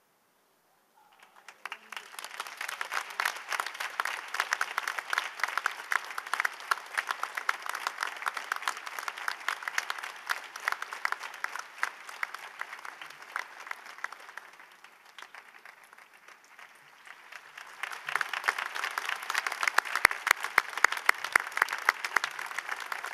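Crowd applauding with many hands clapping. It starts about a second in, eases off past the middle, and swells again near the end.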